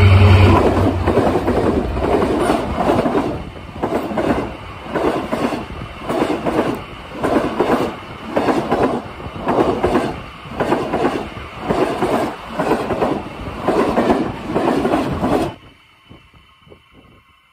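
Diesel locomotive engine drone passing close by at the start, then the train's carriages rolling past, their wheels clattering over the rail joints in a regular beat of roughly one and a half a second. The sound cuts off suddenly near the end, leaving faint noise.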